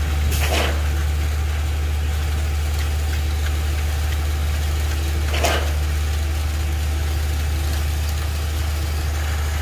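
Concrete boom pump truck's diesel engine running steadily as it drives the pump, a loud low drone. Two short rushes of noise come about five seconds apart, near the start and in the middle.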